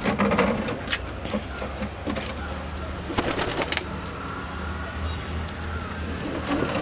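Domestic pigeons cooing, a low continuous murmur, with a few sharp knocks and rustles, the loudest right at the start and another cluster about three seconds in.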